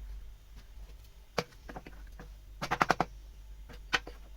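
Sharp clicks and knocks of tools or wood being handled: a single knock, then about a third of the way in a quick rattle of six or so clicks in under half a second, and another single click near the end.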